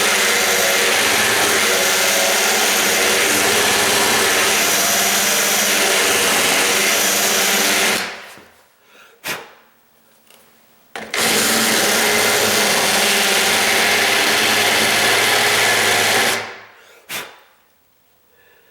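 Electric drill running with a bit reaming out the door strike plate opening, in two runs of several seconds, each winding down to a stop, with a short pause and a click between them.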